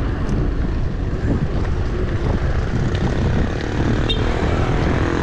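Wind buffeting the microphone of a camera on a moving bicycle: a loud, steady, low rumble.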